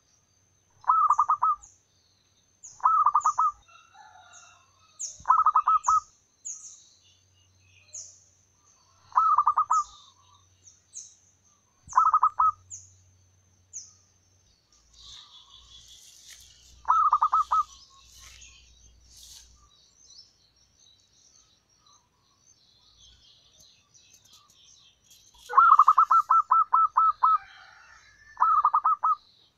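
Zebra dove cooing: about eight short phrases of rapid staccato coos, the longest near the end. A small bird repeats thin high chirps through the first half, with scattered high twittering in the middle.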